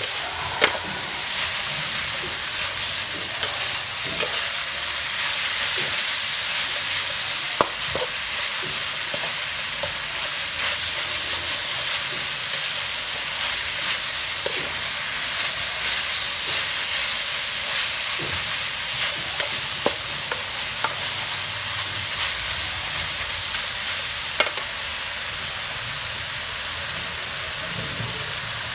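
Chicken and shredded lemongrass stir-frying in a metal wok: a steady sizzle, with the metal ladle scraping through the food and a few sharp clinks against the pan.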